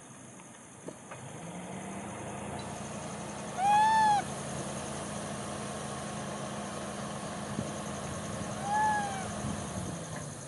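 Two short coo calls from a macaque, each rising then falling in pitch: a loud one about four seconds in and a fainter one near the end. A steady low engine hum runs under them, with a high insect buzz behind.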